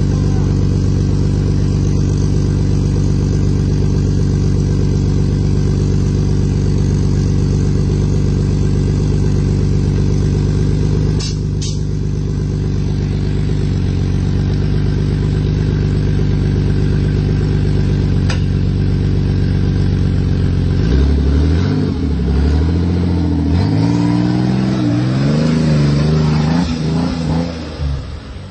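Off-road 4x4's engine running at a steady speed, with a couple of short clicks partway through, then revving up and down repeatedly for the last several seconds.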